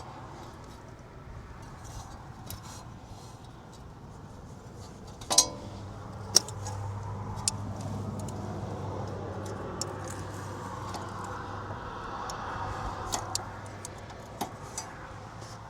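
Metal tools and bolts clinking and clicking during hand work on a van's front hub, with two sharp metallic clacks about five and six seconds in, over a low steady hum.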